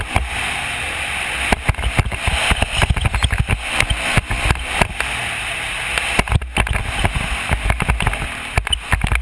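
Dirt bike being ridden over a rough track, its engine running under heavy wind buffeting on the camera microphone, with many irregular knocks and thumps.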